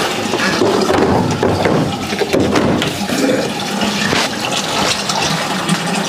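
Steady rushing noise like running water, with a few short plastic clicks and knocks as the top-loading washing machine's top panel is lowered and closed.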